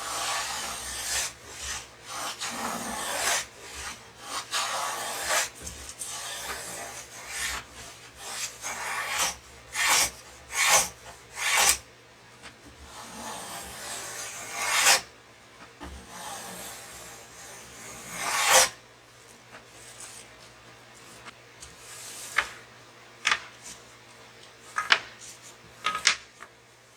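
Wood being shaped by hand: a run of irregular rasping, scraping strokes, easing off after about two thirds into a few light knocks and clicks.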